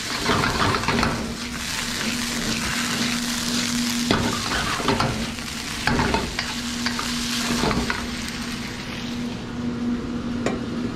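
Diced chicken thigh sizzling hard in a wok over a high-heat gas burner, with the spatula scraping and knocking against the wok every second or so as the chicken is kept in constant motion. A steady hum runs underneath.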